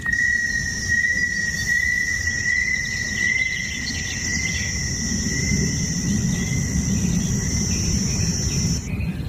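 Insects droning steadily in forest ambience: one high, steady note runs throughout, and a second, higher buzzing band cuts off suddenly near the end, over a low rumble.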